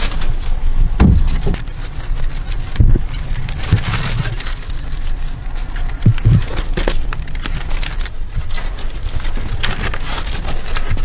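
Irregular dull thumps with crackling and scraping, over a steady low rumble.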